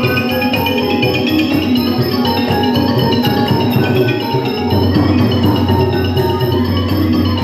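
Thai classical ensemble music led by a wooden xylophone playing fast running melodic lines over drums.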